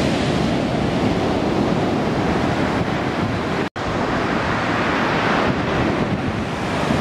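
Storm surf breaking on the shore as a steady wash of sea noise, with wind buffeting the microphone. The sound cuts out for an instant about halfway through.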